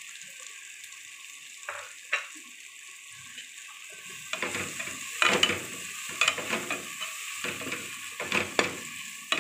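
Onion-tomato masala frying with a steady sizzle in a metal pot, the spices just added. There are two light knocks about two seconds in, and from about four seconds a slotted metal spatula stirs and scrapes against the pot in repeated strokes.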